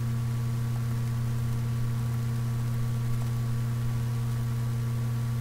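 Steady electrical hum with hiss and crackle: the background noise of a cheap computer microphone recording with its noise suppression switched off.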